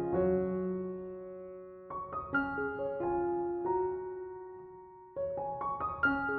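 Slow background piano music: single notes and soft chords, each left to ring and fade, with fresh chords about two seconds in and again about five seconds in.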